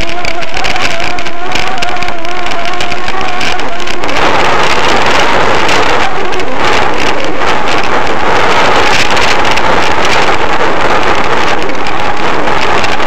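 Loud wind and road noise on the microphone of a camera riding on a bicycle over wet asphalt. For the first four seconds a wavering tone sits over the hiss. It then gives way to a louder, even hiss.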